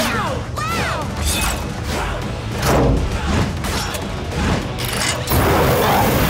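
Cartoon motorbike gear-up sound effects over upbeat music: mechanical clanks and whooshes as parts snap into place, then a rocket booster firing with a loud hiss about five seconds in.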